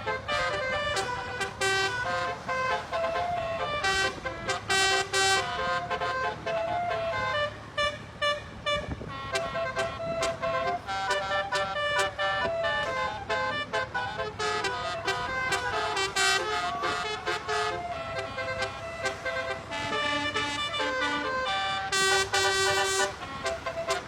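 Multi-tone 'basuri' telolet horn playing a melody: a long run of short horn notes stepping up and down in pitch, in phrases with brief pauses between them.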